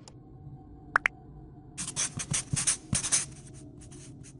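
A marker pen scribbling on a whiteboard in a quick run of scratchy strokes lasting about two seconds in the middle, after two sharp clicks about a second in. Faint background music plays under it.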